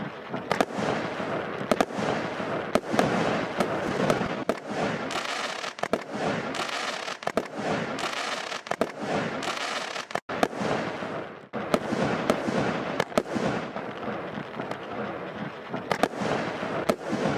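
The Absolute Fireworks TF0524 'Minion' aerial firework firing: a dense, continuous crackle broken by many sharp bangs as its shots burst overhead. There is a momentary gap about ten seconds in.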